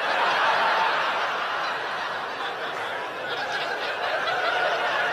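Audience laughing at a stand-up punchline, the laughter swelling up at once and carrying on steadily.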